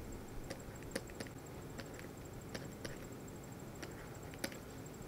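Faint, irregular light clicks and taps of a stylus on a pen tablet while handwriting, over a low steady hiss.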